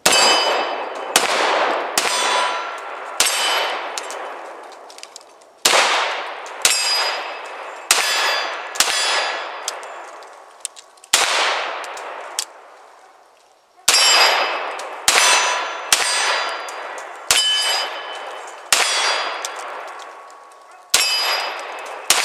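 CZ P-01 compact 9mm pistol firing a slow string of about fifteen single shots, mostly one to two seconds apart with a few longer pauses. Each shot is followed by a metallic ringing that dies away.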